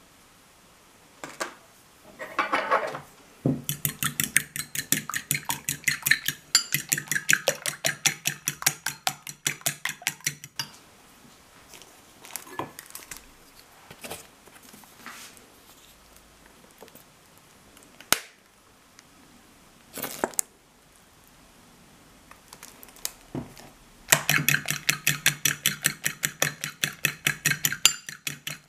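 A metal fork beating a raw egg in a ceramic bowl, clinking against the bowl in rapid, even strokes. The beating breaks off in the middle for a stretch of scattered single taps, then starts again near the end.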